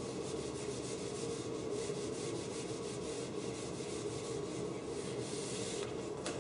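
Whiteboard eraser wiping marker drawings off a whiteboard in repeated scrubbing strokes, with a sharp tap near the end.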